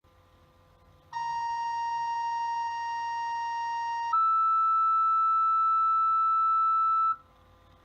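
Two-tone sequential fire-dispatch paging tones heard over a radio: a lower tone held about three seconds, then a higher tone held about three seconds, cut off sharply. The tones set off the fire company's pagers ahead of the dispatcher's call.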